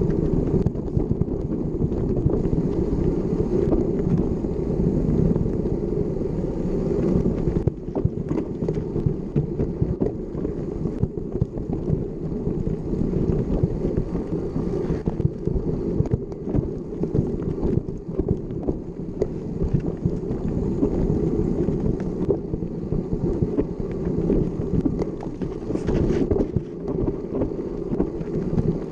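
Wind buffeting the microphone of a camera on a moving mountain bike, with frequent small knocks and rattles from the bike riding over rough trail.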